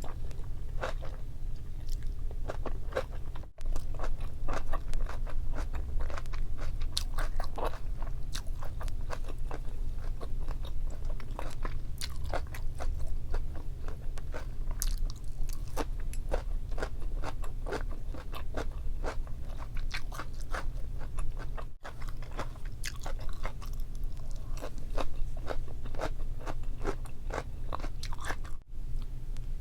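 Close-miked eating of Korean boiled pork with kimchi: dense, irregular crunching and chewing clicks throughout, over a steady low hum.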